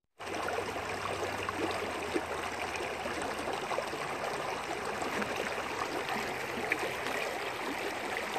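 Shallow mountain creek flowing over stones, a steady rush of water.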